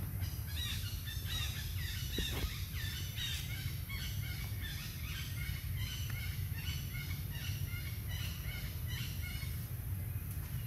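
Infant macaque giving a long run of short, high-pitched squeaking cries, several a second, over a steady low rumble of wind on the microphone.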